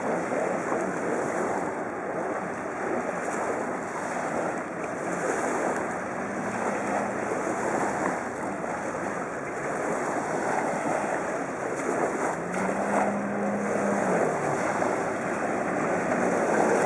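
Jet ski running out on open water, mostly a steady hiss of engine, spray and wind on the microphone. A faint engine tone stands out twice, and the sound grows louder near the end as the craft comes closer.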